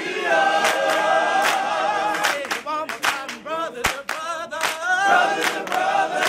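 A cappella vocal group singing in harmony, several voices holding and bending sustained notes, with sharp percussive hits punctuating it.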